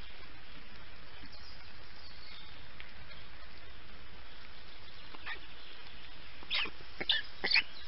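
Steady hiss from a black stork nest camera's microphone. From about five seconds in come short, sharp, high calls, quicker and louder near the end.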